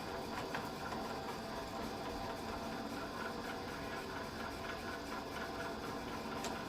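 Small hobby lathe running under its own power, its motor and change-gear train turning with a steady mechanical hum made of several steady tones.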